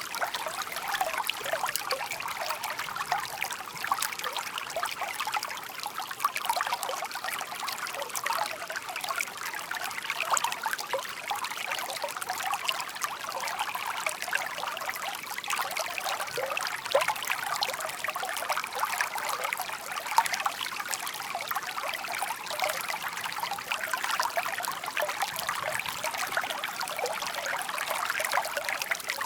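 Shallow stream babbling and trickling steadily, a continuous light water murmur with many small splashing flickers.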